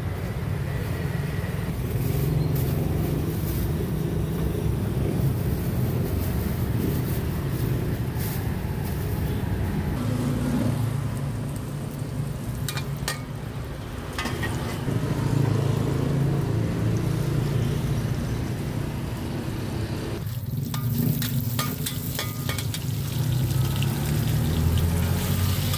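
A steady low rumble of engines and traffic, with scattered metal clatter and faint sizzling from a wok.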